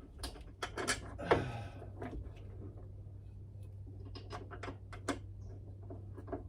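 Metal clicks and knocks as a bolt is fitted and hand-started into the top of a car's strut mount, with a short scrape about a second in, over a steady low hum.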